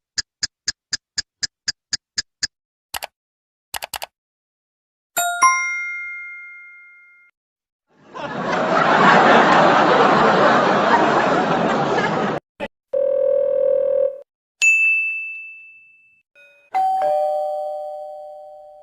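A string of separate short sound effects: a quick run of about ten pitched blips, a few clicks, a ringing ding, a burst of noise lasting about four seconds, a steady low buzzing tone for about a second, another high ding, and a two-note chime that rings down.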